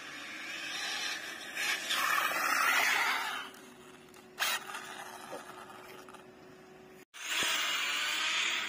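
Arrma Kraton 6S RC truck running on paving: a hissing rush of tyres and drive that swells over the first few seconds and fades, then a sharp click. After a sudden cut, the same rush swells again near the end.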